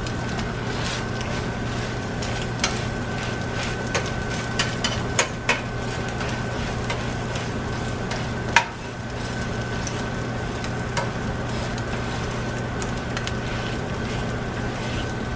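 Eggs frying in oil in a nonstick skillet, sizzling steadily, while a slotted spatula scrapes and taps against the pan now and then, with the loudest tap a little past halfway.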